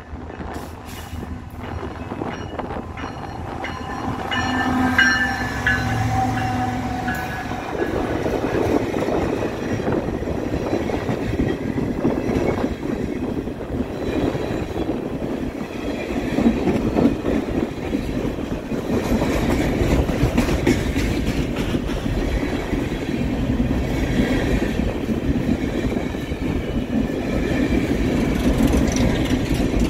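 A BNSF freight train sounding its horn for about four seconds early on, then its cars rumbling and clattering steadily past on the rails.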